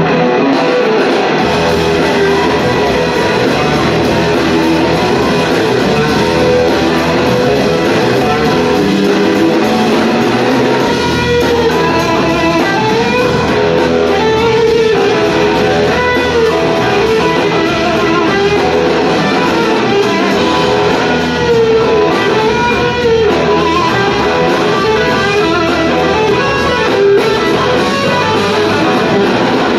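Live blues-rock band playing an instrumental passage, loud and steady. An electric slide guitar lead with long gliding notes plays over two drum kits and organ, recorded from the audience.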